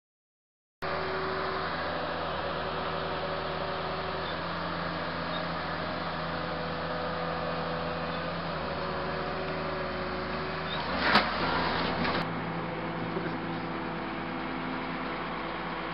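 Diesel engine of a Case 1188 wheeled excavator running steadily, starting about a second in. There is one sharp knock about two-thirds of the way through, and the engine note changes slightly just after it.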